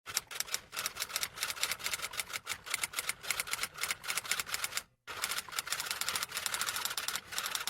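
Rapid typing: a fast, uneven run of key clicks that pauses briefly about five seconds in, then carries on.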